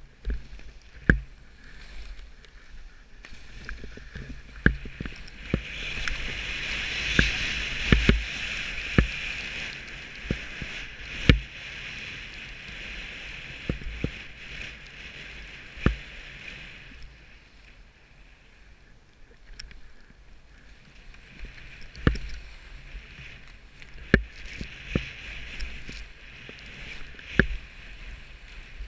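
Skis sliding and hissing over snow on a downhill run. The hiss swells for several seconds through the middle and again near the end, with many sharp knocks as the skis jolt over bumps, under a low rumble.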